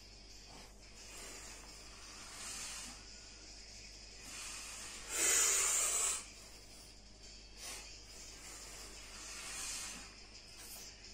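A man's hard breathing while pressing a barbell overhead: hissing breaths every couple of seconds, with one loud, forceful exhale about five seconds in that lasts about a second.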